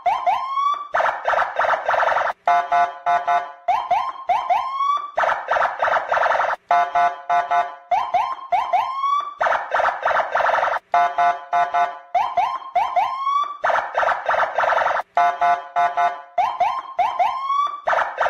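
Electronic police-style car siren horn cycling through the same pattern about every two seconds: a quick stutter of short beeps, a few rising whoops, then a fast warble.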